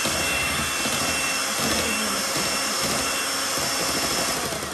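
Electric hand mixer running, its twin wire beaters whipping thick banana cake batter in a stainless steel bowl: a steady motor whine over a rushing noise, fading near the end as the mixer winds down.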